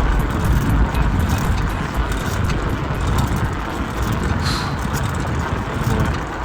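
Wind buffeting the microphone of a camera mounted on a moving ride, with a low rumble from travelling along the trail and scattered small clicks and rattles.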